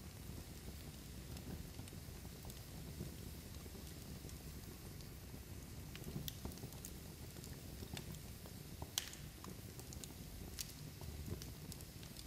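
Log fire burning with a steady low rumble of flame and scattered sharp crackles and pops from the burning wood, one louder pop about nine seconds in.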